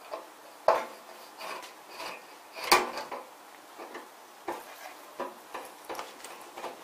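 Screwdriver backing out metal screws from the top cover of a Glunz & Jensen iCTP Platewriter 2400, giving a series of small metallic clicks and clinks. The two loudest come just under a second in and near three seconds in, then lighter, quicker ticks follow in the last couple of seconds.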